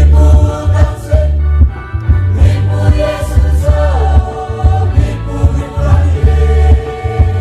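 A church choir singing in harmony, accompanied by a deep, steady beat on rebana frame drums.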